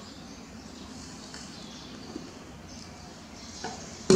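Low background noise with a few faint, high chirps and a small click, then a single sharp knock near the end.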